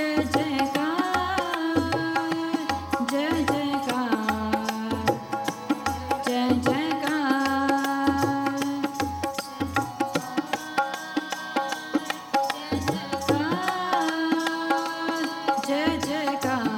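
Sikh shabad kirtan: a harmonium sustains held notes while female voices sing a melody that glides between pitches. A tabla keeps a steady rhythm of low bass strokes underneath.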